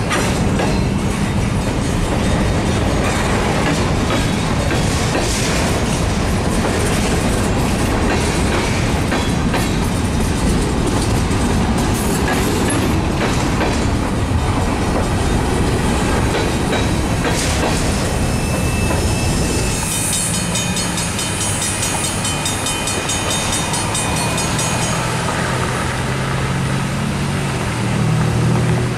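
Freight train of covered hopper cars rolling past close by, steel wheels clacking steadily over the rail joints. Near the end a low hum builds as the last cars pass.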